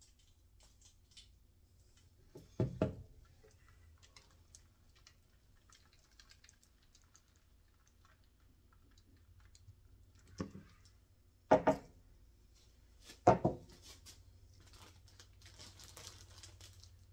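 Dull wooden knocks as a large stretched canvas on its wooden frame is tilted and set back down on the table: one about three seconds in, then three more close together later on. Faint small ticks come between them.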